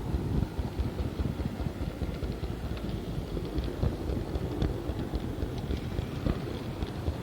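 Model tram running along a diorama's track: a steady low rumble from the motor and wheels, with many small clicks.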